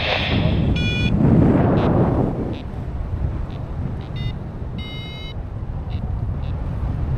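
Wind buffeting the microphone in flight, with a paragliding variometer giving a few short electronic beeps, about a second in and again around four and five seconds in.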